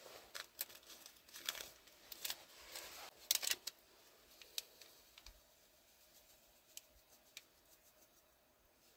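Small handling noises at a steel camp mug: a packet crinkling and a plastic lid clicking. A quick run of clicks and rustles in the first few seconds, the loudest about three and a half seconds in, then scattered light ticks.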